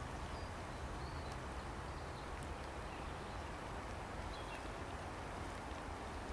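Bernese mountain dog wading through shallow lake water, a steady splashing of its steps, over a low rumble with a few faint high bird chirps.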